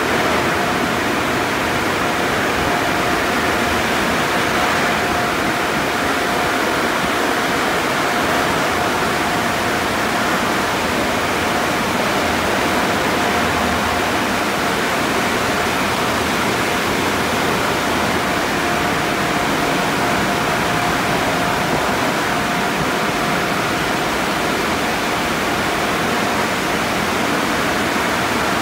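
Conveyor car wash tunnel running: a steady rush of spraying water and machinery, with a thin steady whine through it.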